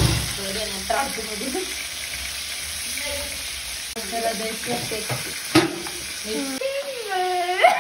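Spiced chicken pieces sizzling as they fry in a small steel kadai, stirred and turned in the pan, with a sharp knock of utensil on pan about five and a half seconds in.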